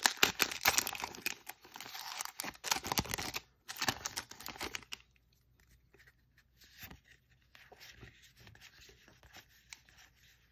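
Foil booster pack wrapper being torn open and crinkled, loud crackling for about the first five seconds. After that comes the faint slide and tick of trading cards being fanned through by hand.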